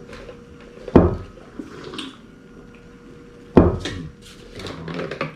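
Kitchen handling sounds while making coffee: a stovetop espresso pot and cup clank sharply twice, about a second in and again past the middle, amid softer splashing of liquid.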